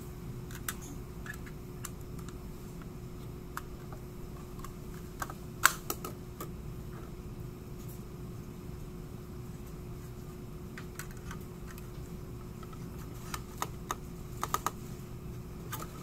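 Scattered light clicks and taps of a 2.5-inch SSD being handled and fitted into a NUC's metal drive bracket. The loudest click comes about six seconds in, with a quick cluster of clicks near the end, over a steady faint hum.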